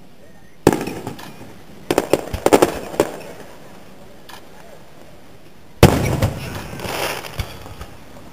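Aerial firework shells bursting. A sharp bang comes under a second in, then a quick run of pops and crackles around two to three seconds. The loudest bang comes near six seconds and rumbles on for over a second.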